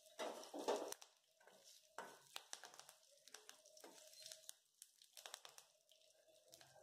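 Faint, sparse crackling of curry leaves, mustard seeds, urad dal and cumin frying in a little oil in a steel pan, with the clearest crackles in the first second and a few more around two seconds in.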